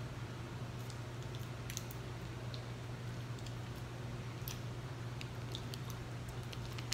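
Faint eating sounds: a few scattered small clicks and smacks from chewing fried fish and a fork working it in a foam container, over a steady low hum.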